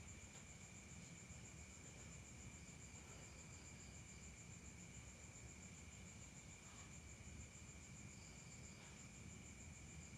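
Faint, steady high-pitched trilling of night crickets, with a low background rumble.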